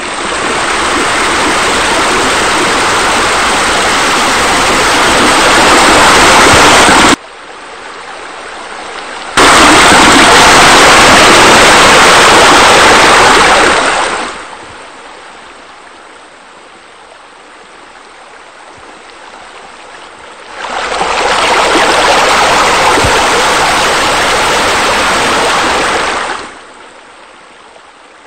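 Rushing, splashing water of pool water features such as arcing deck jets and bubblers. It comes in loud stretches: it cuts off suddenly about seven seconds in, returns about two seconds later, fades low after about fourteen seconds, and swells again between about twenty and twenty-six seconds.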